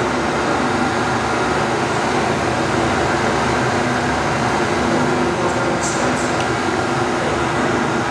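Steady, even roar with a low hum in a Hawk jet trainer flight simulator cockpit.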